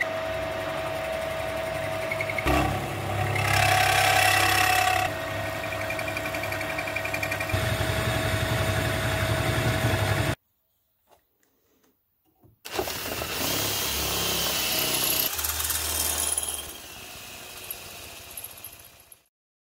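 Drilling machine running with a steady motor whine as a large twist drill bores into an aluminium motorcycle cylinder head, the cutting growing louder and harsher in spells. The sound cuts off abruptly about ten seconds in, stays silent for about two seconds, then starts again with more cutting and stops shortly before the end.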